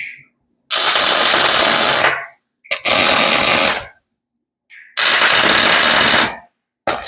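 Arc welding in short bursts: four runs of about a second and a half each of crackling welding-arc noise, each starting and stopping sharply with silence between them.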